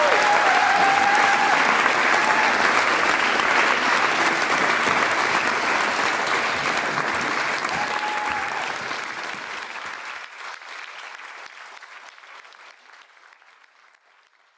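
Audience applauding, fading out gradually over the last several seconds.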